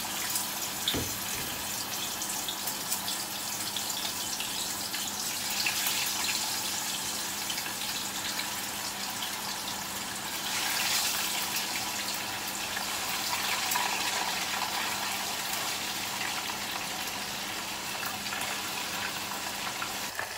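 Fish fillet pieces frying in hot oil in a saucepan: a continuous crackling sizzle that swells as more pieces are lowered in. A few clicks of metal tongs come near the start.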